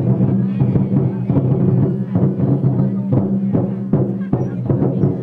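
Music with a low, sustained tone and regular drum beats.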